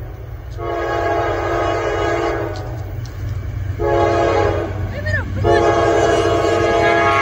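Norfolk Southern diesel locomotive's multi-chime air horn sounding the grade-crossing signal: a long blast, a short one, then a final long one, over a steady low rumble of the approaching train.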